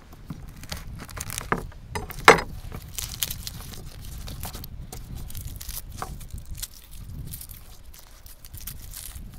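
Garlic bulbs being broken apart into cloves by hand: papery garlic skins crackling and tearing in many short clicks, with one loud sharp crack a little over two seconds in as a bulb splits.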